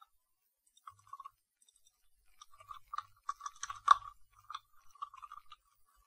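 Typing on a computer keyboard: a few keystrokes about a second in, then a quick run of keystrokes from about two seconds in, one strike near the middle louder than the rest.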